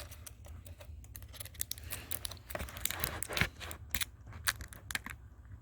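Hands handling a laptop LCD panel and its plastic parts during fitting: a run of light clicks, taps and scrapes, thickest in the middle.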